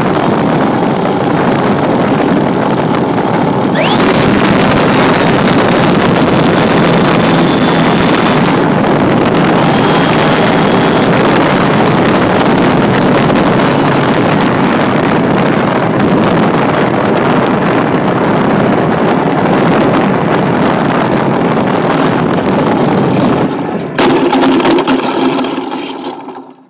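Pitts S-2A radio-controlled model airplane's engine running flat out with wind rushing past, heard from a phone inside its cockpit, very loud. Near the end the noise jumps once, then dies away as the plane comes down onto pavement and stops.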